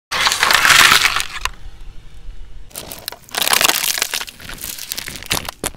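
A car tyre rolling over and crushing clear plastic clamshell boxes filled with coloured jelly, starting suddenly with a loud crackle and crunch of splitting plastic. After a pause of scattered clicks, a second burst of crackling and crunching comes about three seconds in as the tyre presses down on jelly sweets.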